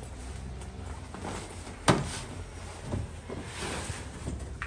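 A sharp knock about two seconds in and a softer thud about a second later, with rustling, as a large gear bag is lifted and shoved into a pickup truck's bed.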